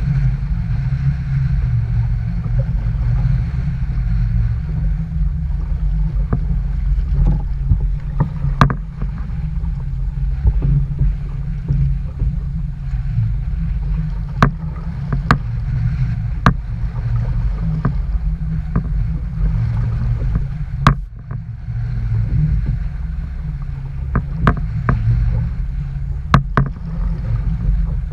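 Strong wind buffeting the microphone with a heavy, steady rumble, and scattered sharp knocks and ticks through it.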